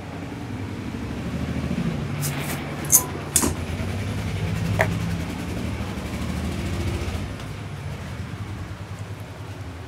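A motor vehicle engine runs steadily, growing louder and then fading away. A few sharp clicks sound about three seconds in and again near five seconds.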